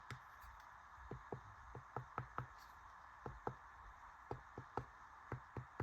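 Repeated tapping on a plastic speaker mounting bracket lined with butyl rubber sound-deadening: a run of short, dull knocks, about two to three a second. The deadening has made the plastic dense and solid, so it knocks without rattling or ringing.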